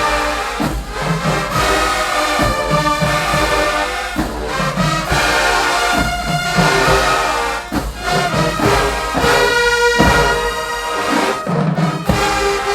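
Marching band brass section playing sustained, loud chords, with drums underneath.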